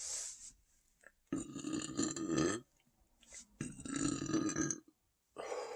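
A person burping twice, two long, loud burps of about a second and a half each, from an overfull stomach after very heavy eating.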